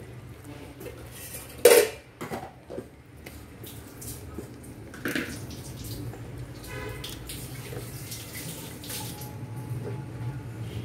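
Raw chicken pieces being dropped into a pot of thick tomato masala, giving a few soft knocks and splats against the pan. The sharpest knock comes about two seconds in, over a steady low hum.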